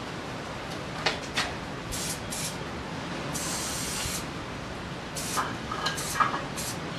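Montana 94 spray can with an Astro fat cap spraying paint in several short hisses and one longer spray of about a second near the middle. Two light clicks come about a second in.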